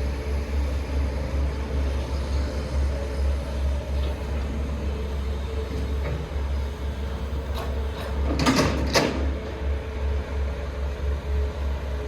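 Heavy diesel machinery running steadily with a low rumble and a faint steady whine. A little past the middle come two short, loud, harsh noises about half a second apart.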